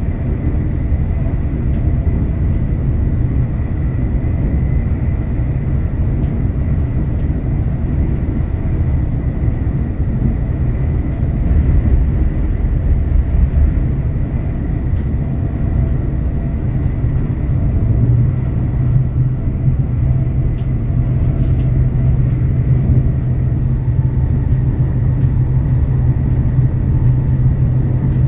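Electric passenger train running at speed, heard from inside the carriage: a steady low rumble of wheels on rail, with a faint steady high tone. About two-thirds of the way through, a steady low hum grows stronger.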